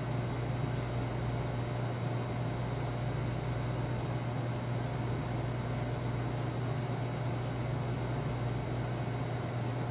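Steady low machinery hum with an even airy hiss, the constant running of a commercial kitchen's fans and equipment.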